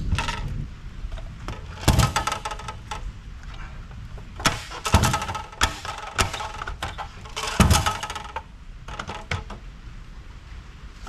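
Irregular knocks and bangs on a metal amplifier chassis, several of them ringing briefly after the strike, as a jammed part is knocked loose.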